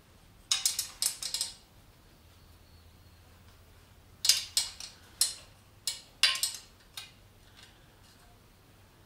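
A metal hand tool clicking and clinking on the exhaust header fittings of a Honda CBR250R MC19. The clicks come in two short spells, one about half a second in and another from about four to seven seconds in.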